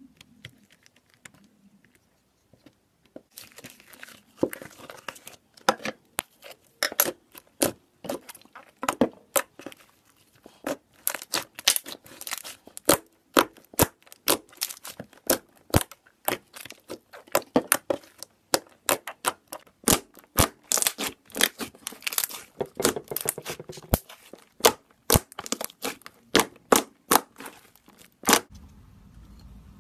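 Thick white slime, freshly activated, being worked by hand: a rapid, irregular run of sticky pops, crackles and tearing sounds as it is kneaded and pulled apart. It is fairly quiet at first, and the popping starts in earnest about three seconds in.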